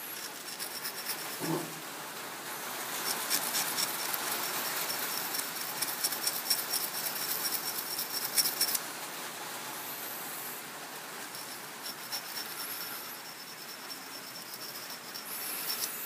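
Lathe tool bit being hand-honed in the tool post with a small fine sharpening stone: quick rasping rubbing strokes of stone on the steel edge to restore its sharpness after cutting into weld. The strokes are busiest from about three seconds in to about nine seconds, then go on more lightly.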